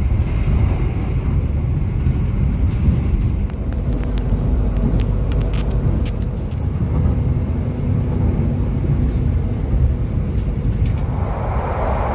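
Steady low rumble of an express passenger coach running at speed, heard from inside, with a few faint clicks from the wheels on the rails. About eleven seconds in, a louder rushing hiss comes in as the train enters a tunnel.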